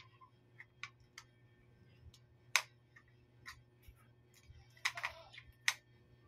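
Irregular small clicks and taps from hands handling the parts of a solar light during unboxing. The sharpest click comes about two and a half seconds in, with a short cluster of clicks and rustling near five seconds.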